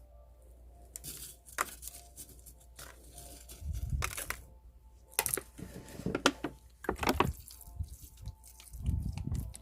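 Hands setting succulent cuttings into a pot of potting soil: scattered light clicks, scrapes and rustles, with a couple of dull low thumps around four seconds and nine seconds in.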